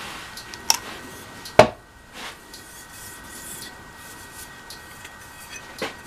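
Metal parts of a backhoe's shuttle-shift transmission being handled and fitted: a large steel disc rubs and clinks against the cast housing plate, with two sharp clinks in the first two seconds, the second the loudest, and another short knock near the end.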